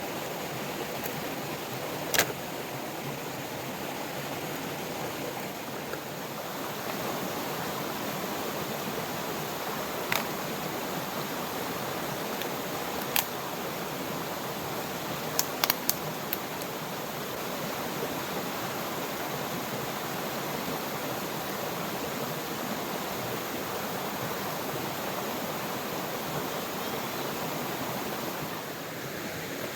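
Steady rushing of heavy rain and a flowing river. A few sharp ticks stand out: single ones about two, ten and thirteen seconds in, and a quick run of several a little after the middle.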